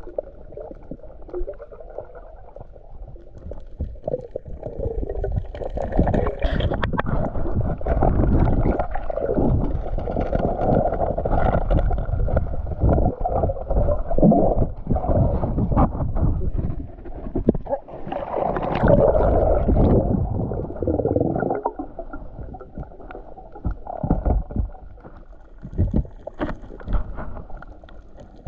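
Muffled underwater water noise around a submerged camera: irregular rushing, gurgling surges and low thumps, swelling louder about four seconds in and easing off after about twenty-two seconds.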